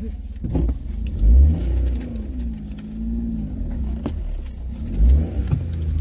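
A car driving, a steady low rumble with several heavier surges.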